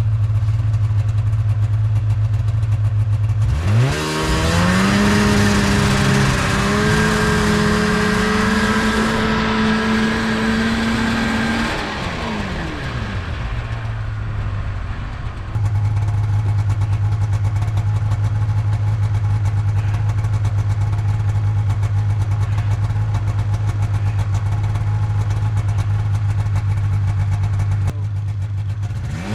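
Snowmobile engine revving up about four seconds in and holding high for several seconds, then dropping back to a steady idle. It begins to rev again at the very end.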